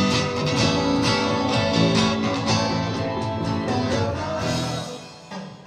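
A rock band playing live: electric guitar over drums and keyboard, with a steady beat. The music dies down about five seconds in.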